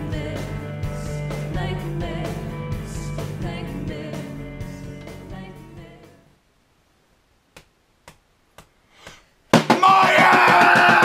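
Background music with singing fades out over the first six seconds, followed by near silence with a few faint clicks. About nine and a half seconds in, a loud snare drum roll starts abruptly, with people yelling over it.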